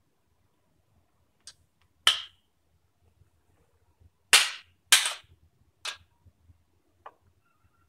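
About five sharp knocks or snaps, the two loudest about half a second apart in the middle, as a hand-held tool prods a small 12 V computer fan. The fan is not spinning: it is stalled or seized, and no motor or airflow noise is heard between the knocks.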